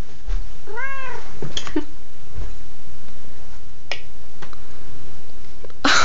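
A domestic cat meows once, about a second in, with a few faint clicks after it. Just before the end comes a loud, close burst of noise, louder than the meow.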